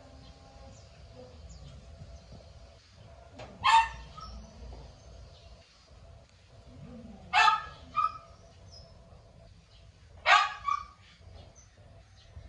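A dog barking: three loud single barks about three seconds apart, the second and third each followed quickly by a shorter, softer bark.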